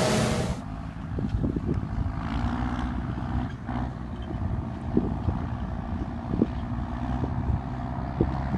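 Marshall 904XL tractor's diesel engine running steadily under heavy load, pulling a trailer full of river gravel, with scattered knocks and rattles. A loud rushing noise cuts off suddenly about half a second in.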